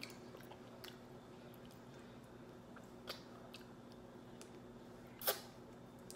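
Faint mouth-closed chewing and small clicks of seafood shell being picked apart with the fingers: a few sparse clicks, with a sharper one about five seconds in.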